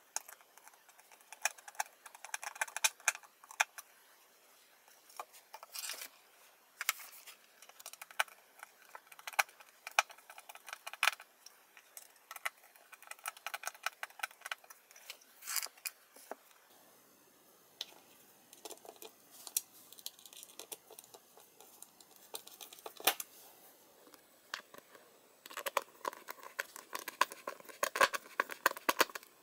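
Hand screwdriver turning metal connector screws into particleboard drawer panels: irregular runs of small metallic clicks and scrapes, with light knocks as the panels and screws are handled.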